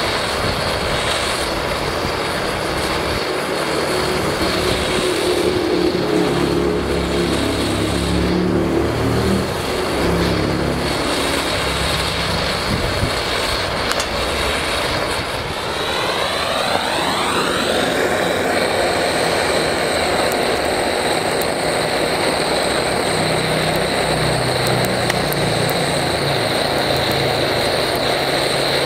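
Gas blowtorch burning with a steady roar, with a rising swish partway through.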